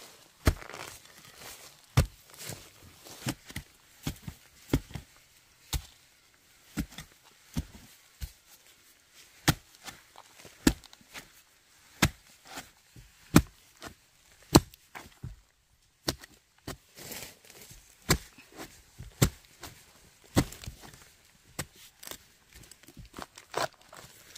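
A blade chopping bamboo shoots: a long run of sharp, separate chops, irregularly spaced at roughly one a second, with a brief pause about two-thirds of the way through.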